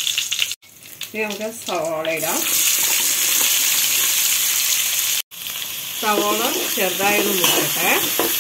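Hot oil sizzling steadily in a pan as okra and then chopped onions fry, with the sound breaking off for an instant twice, about half a second in and about five seconds in. A voice-like pitched sound rises over the sizzle twice, about a second in and again from about six seconds.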